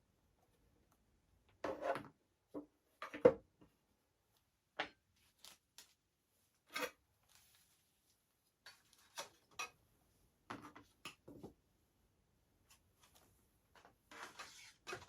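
Airsoft electric gun parts being handled: irregular clicks, knocks and short rubbing noises of hard plastic and metal, with the loudest knock about three seconds in.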